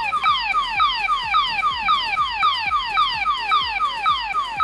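DX Gourai Changer toy transformation brace playing its electronic sound effect: a rapid, steady string of falling beeps, about four a second.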